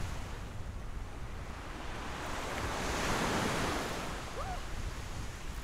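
Ocean surf breaking and washing up the beach, swelling to a peak about halfway through and then fading, with wind rumbling on the microphone.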